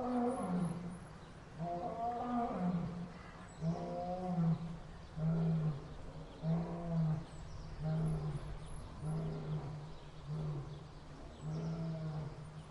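Lion roaring: two long, deep roars, then a run of shorter grunting roars about one a second that taper off.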